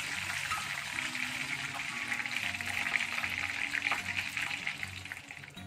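Hot oil sizzling and crackling around breaded fish fingers as they are lifted out of the deep-fry pan with a wire strainer, fading near the end. Background music underneath.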